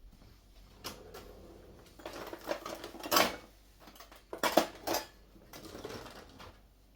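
Kitchen dishes and utensils being handled: scattered knocks and clinks, the loudest about three seconds in and again a second and a half later.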